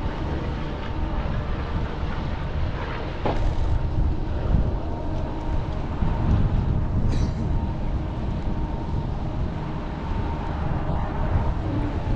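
A boat engine running steadily under strong wind buffeting the microphone, which gives a heavy, fluttering low rumble.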